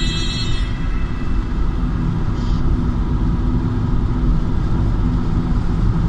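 Steady low rumble of road and engine noise heard from inside a moving car's cabin. Music fades out in the first second.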